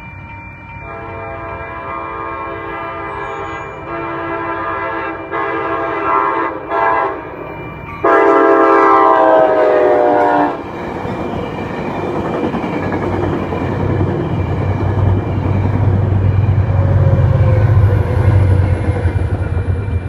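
Locomotive's Nathan K5LA five-chime air horn sounding a series of blasts for the crossing. The last blast is the loudest and drops in pitch as the locomotive passes. The train then rumbles and clatters over the crossing, with a deeper rumble building in the second half, while the electronic crossing bell rings steadily throughout.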